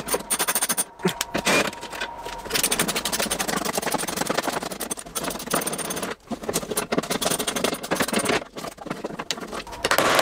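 Socket ratchet clicking in quick runs as bolts along the bottom of a car's front wing are undone, with a few sharp knocks of tools between the runs.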